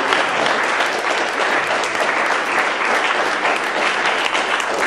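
Audience applauding steadily: many people clapping at once in a room, a dense even patter.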